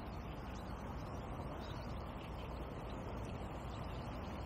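Steady, even outdoor background noise with a low rumble and no distinct events.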